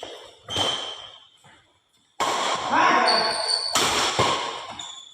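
Badminton play: sharp racket hits on a shuttlecock about half a second in and again near four seconds, with players' loud voices between them.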